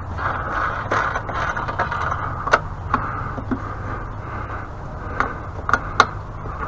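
Hand tools clicking and knocking against the pressure washer's metal parts as a bolt is worked loose, a few sharp clicks, most of them in the second half, over a steady low hum.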